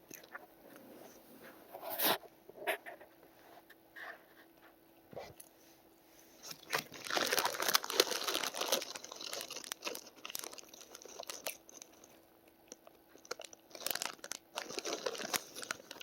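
Crisp crunching of Lay's potato chips in scattered bursts: a single crack about 2 s in, a long spell of crunching about halfway through and another near the end.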